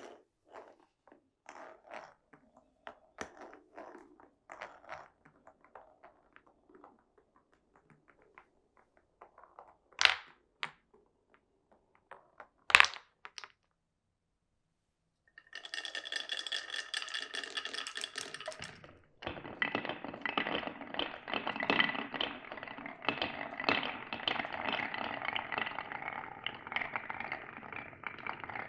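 Marbles rolling and clicking along wooden marble run track, with two sharp loud knocks about ten and thirteen seconds in. After a short pause, a steady rushing rattle starts and grows denser and louder about three seconds later.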